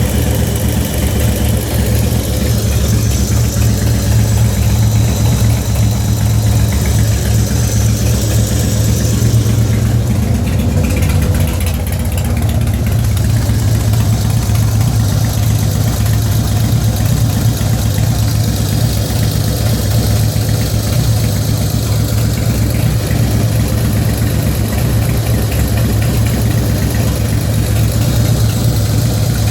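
2004 Harley-Davidson FXST Softail's Twin Cam 88B V-twin idling steadily, with a ticking noise that the owner says began after a recent fluid change. The engine note changes briefly about ten seconds in.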